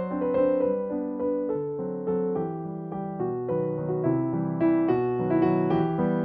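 Background piano music: a gentle melody of sustained notes changing steadily.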